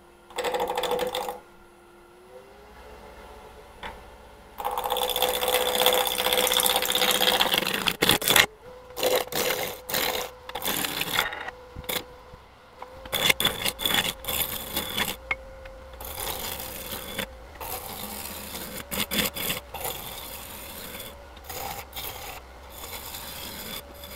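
Wood lathe motor running, its whine rising in pitch about two seconds in as it speeds up. From about four and a half seconds a roughing gouge cuts into the spinning square blank, taking it down to round: loud, rough cutting broken by short gaps between passes.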